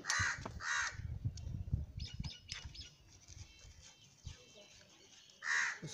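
Short, high animal bleats, two near the start and one near the end. In between come light metallic clicks and handling noise as two bolts are fitted to the motorcycle engine.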